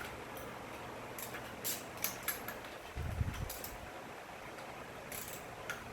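Scattered light clicks and taps of hand tools working on an engine's valve cover bolts, with a low thump about three seconds in.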